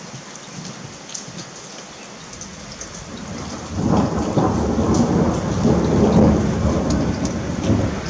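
Steady rain hiss with scattered drop ticks. About four seconds in, a loud rumble of thunder rolls in and keeps going.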